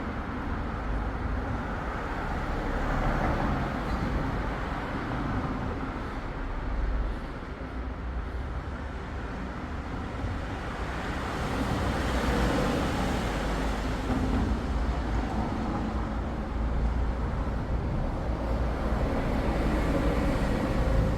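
Vehicle engine running steadily: a low rumble under a broad rushing noise that swells and eases a little.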